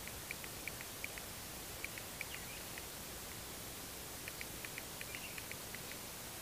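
Outdoor field ambience: a steady hiss with short high chirps from a small animal, coming irregularly in small clusters, busiest near the start and again in the last couple of seconds.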